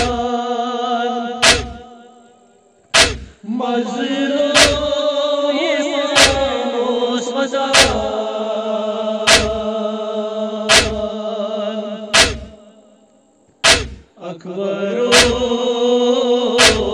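Men chanting a nauha, a Shia lament, in unison on long held notes, over a steady beat of chest strikes (matam) about every second and a half. The singing pauses twice between lines, and the beat carries on alone through the pauses.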